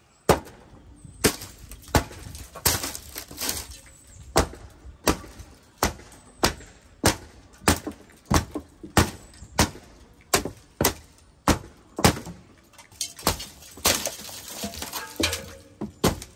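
A wooden-handled hammer striking a rotten, ant- and termite-eaten wooden rim joist over and over, about one and a half blows a second, knocking the decayed wood apart so it splinters and breaks away.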